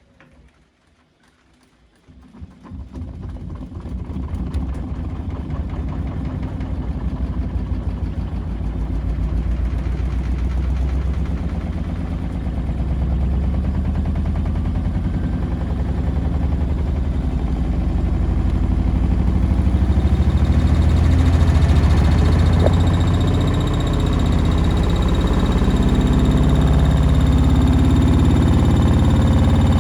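Beko washing machine spinning up on a spin cycle, its stiff shock absorbers letting the drum's vibration through as a loud rumble. The rumble starts about two seconds in and keeps building, and a faint high whine joins about two-thirds of the way through.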